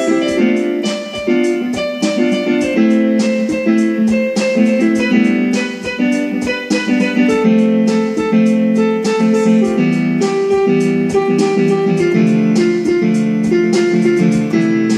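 Instrumental background music: plucked guitar notes over a steady beat.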